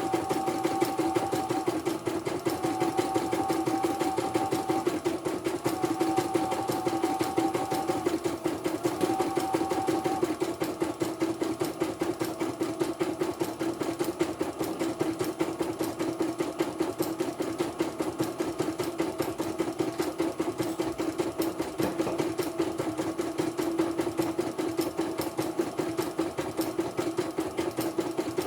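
A CNY portable computerized embroidery machine stitching at speed: a fast, even needle clatter. During the first ten seconds a steady whine sounds in stretches of about two seconds with short breaks, then stops.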